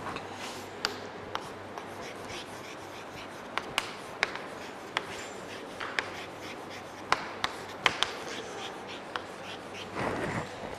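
Chalk writing on a chalkboard: irregular sharp taps and short scratches as the letters go down, with a longer scrape about ten seconds in.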